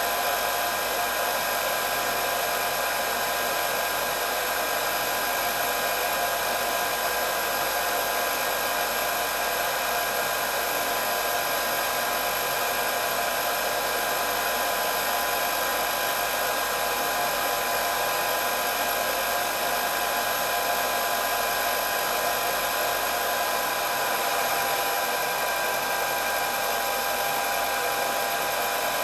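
Handheld electric hair dryer running continuously: a steady rush of blown air with a constant motor whine.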